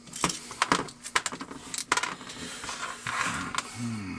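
Small metal tools and parts clinking and clattering as they are picked up and set down on a hard workbench, in a quick series of sharp clicks.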